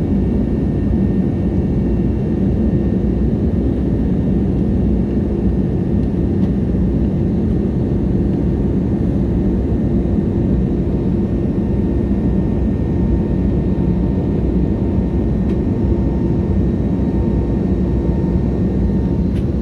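Steady cabin noise inside an Airbus A320neo: an even low engine drone and airflow rush with a few faint steady tones, holding level throughout.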